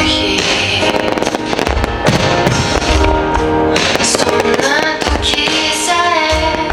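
Aerial fireworks bursting in quick succession, with low booms and sharp crackles, over loud music from the show's speakers: a song with a female vocal that comes in with wavering sung notes about two-thirds of the way through.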